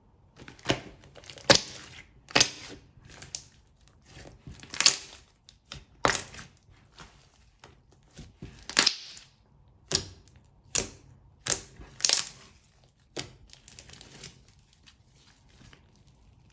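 Hands kneading and pressing slime: an irregular run of sticky pops and crackles, a sharp one about every second.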